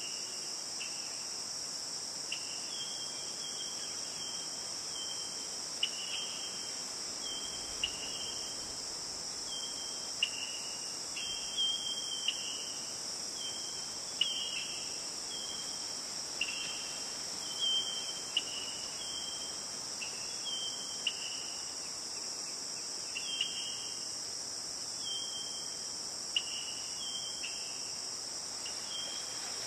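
Steady high-pitched chorus of insects, with short, clear chirps on a level pitch repeating at roughly one a second over it, often in pairs that step up or down in pitch.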